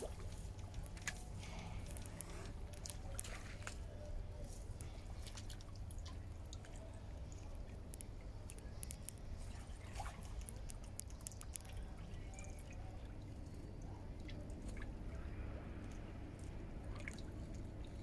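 Mute swans dabbling and feeding among floating dry reeds: small water drips and splashes with many little sharp clicks, thickest in the first two-thirds, over a steady low rumble.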